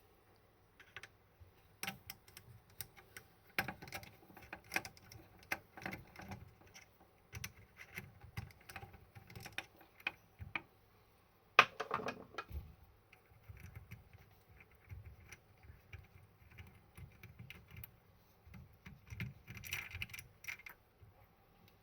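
Irregular small clicks and clinks of hard parts being handled, with one sharper knock about twelve seconds in: tools and faucet parts being worked on during a faucet leak repair.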